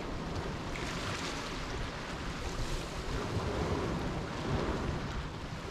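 Small waves breaking and washing over a pebble beach, with wind rumbling on the microphone.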